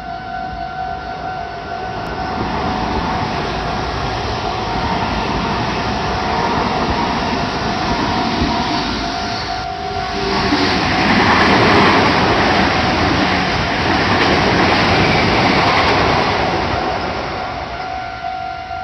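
A Meitetsu electric train passes over a level crossing close by, its running noise building up and loudest in the second half before easing off near the end. The crossing's warning bell keeps sounding underneath it.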